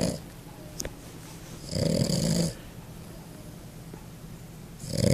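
Pug snoring in its sleep: a snore trails off at the start, a full snore comes about two seconds in, and the next begins near the end, each lasting under a second.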